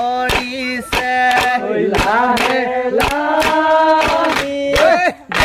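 A group singing a Moran bihu folk song in unison, the melody held and bent on long notes. Sharp percussive beats keep time about twice a second. The singing breaks off briefly near the end.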